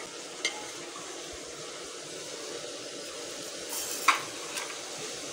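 Lentil wadiyan sizzling steadily as they fry in oily masala in a metal pot. A metal ladle clicks against the pot twice, about half a second in and, louder, about four seconds in.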